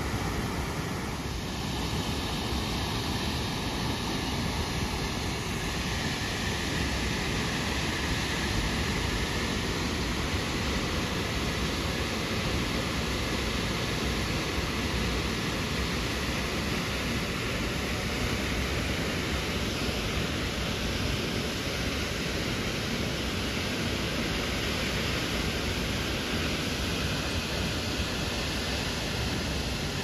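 Steady rushing of Chitrakote Falls, the Indravati River pouring over a rock cliff into the pool below.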